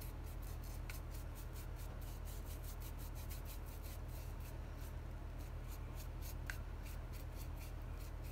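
Paintbrush stroking glaze-like paint onto a hardened Apoxie Sculpt epoxy clay bowl: soft, quick, even scratchy brush strokes, with a steady low electrical hum underneath.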